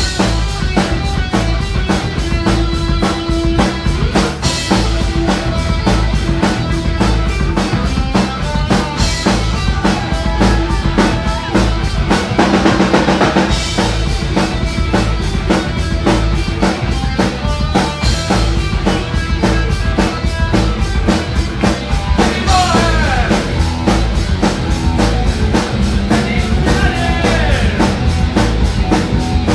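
Rock band playing an instrumental passage: a drum kit with bass drum and snare keeps a steady beat under held pitched notes, with notes bending up and down in the last few seconds.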